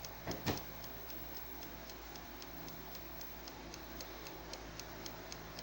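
ILO air fryer's mechanical timer ticking in a rapid, even rhythm, with a couple of light knocks about half a second in. It is the only sound from the fryer: no fan or heater runs, as the unit is dead.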